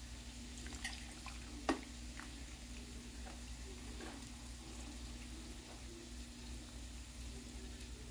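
Hot water poured from a stainless-steel electric kettle into a mug holding tea bags and a spoon: a soft, steady trickle of water, with a light click just under two seconds in, over a faint steady hum.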